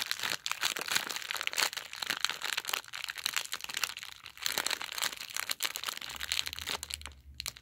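Thin plastic LEGO minifigure blind-bag packet crinkling and crackling irregularly as it is squeezed and kneaded between the fingers to feel the parts inside.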